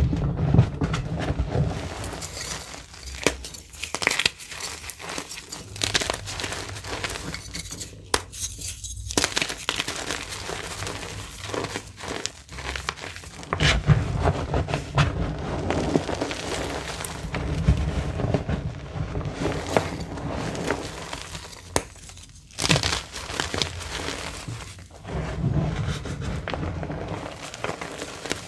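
Gloved hands pressing and squeezing into a heap of crumbled reformed gym chalk, the powder and small chunks crunching and crackling with many small sharp cracks and repeated soft thuds as the hands push down.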